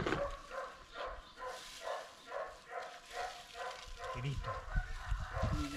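A dog barking over and over, about two to three barks a second.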